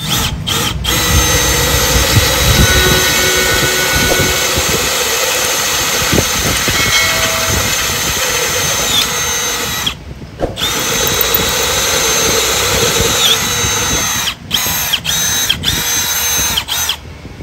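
Milwaukee M12 brushless cordless drill boring a twist bit into a wooden beam, its motor whining steadily under load. It stops twice right at the start, pauses about ten seconds in, then runs in several short start-stop bursts near the end, the whine rising in pitch each time it spins back up.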